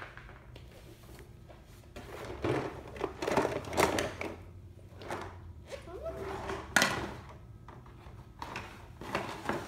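Handling of a cardboard toy box: a series of knocks, scrapes and thuds, with one sharp knock about seven seconds in.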